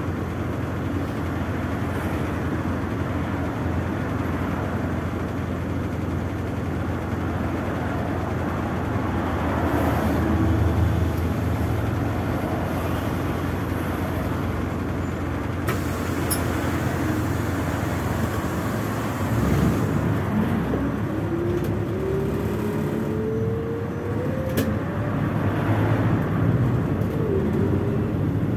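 Inside a MAZ 206 city bus under way: steady engine and road noise in the cabin. In the last third a whine rises steadily in pitch as the drivetrain speeds up.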